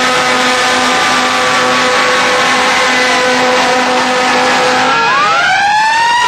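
Fire apparatus sirens and horns sounding together: steady horn tones, one pulsing, under a siren slowly winding down, with another siren winding up about five seconds in.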